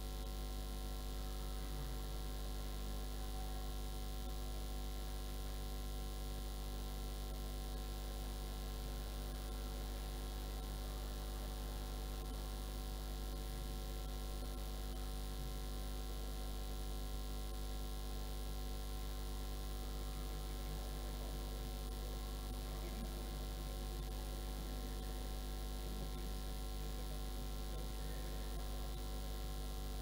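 Steady electrical mains hum, low and unbroken, with fainter steady tones above it.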